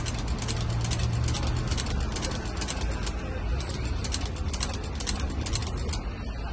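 Old cylinder-arm shoe patcher sewing machine stitching through a sports shoe's upper: a rapid, even clatter of needle strokes, about five a second. It stops briefly about three seconds in, then runs again until near the end.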